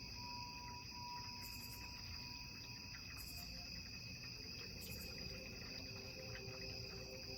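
Crickets trilling steadily at a high pitch, faintly. A soft ringing tone dies away in the first few seconds, and low hum-like tones come in about halfway through.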